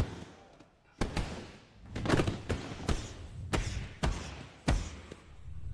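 Kicks and punches smacking into padded strike shields and focus mitts: a series of sharp thuds, about eight in all, coming faster from about two seconds in.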